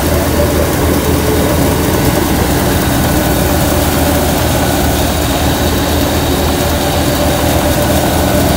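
Tractor-driven grain thresher running steadily while threshing: a constant low drone of the engine and spinning threshing drum, with no change in speed.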